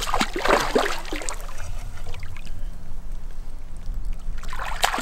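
A hooked taimen thrashing at the water's surface on the line, splashing hard through the first second and a half and again near the end, with a low rumble in between.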